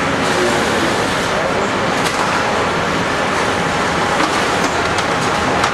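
A dense, steady wash of noise with indistinct voices in it, like traffic or a busy crowd, and a few faint clicks.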